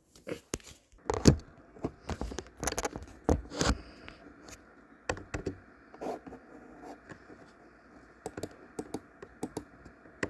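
Irregular clicks, taps and knocks, some louder than others, over a faint steady hum that starts about a second in.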